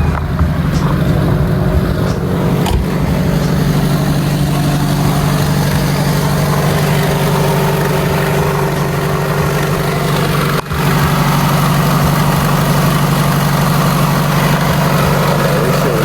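1998 Toyota Camry LE's 2.2-litre four-cylinder engine idling steadily, just after its cracked air intake hose was replaced, with a momentary dropout about two-thirds of the way through.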